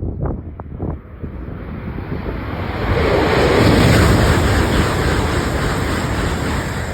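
A JR East Shinkansen bullet train passing through the station at high speed without stopping. It makes a rushing noise of air and wheels that swells to its loudest about three to four seconds in, with a few short thumps in the first second.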